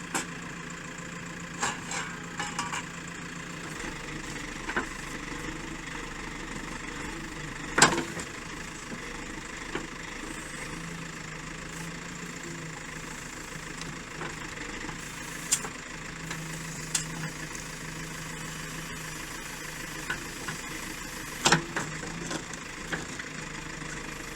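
Excavator's diesel engine running steadily while digging trenches, with several sharp knocks at irregular moments; the loudest come about 8 seconds in and near the end.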